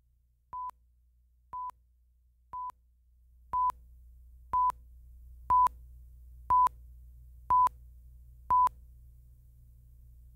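Countdown-leader beeps from a broadcast tape: nine short, high, identical beeps, one each second, the first three quieter than the rest. A faint low hum runs underneath.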